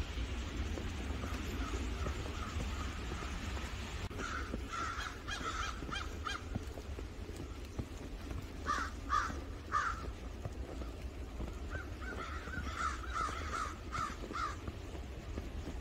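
Crows cawing in runs of several harsh calls: a cluster about four seconds in, three calls near the middle, and a faster string near the end. A steady low rumble lies underneath.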